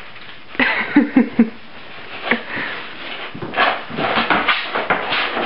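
Five-week-old puppies at play, tugging and scuffling: short irregular snuffling and scrabbling sounds, with a few brief small puppy noises about a second in.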